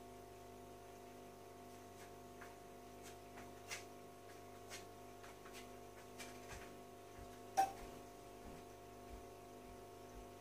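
Faint steady hum of the aquarium's filter pump, a mix of several fixed tones, with scattered soft clicks and ticks; the sharpest comes about seven and a half seconds in.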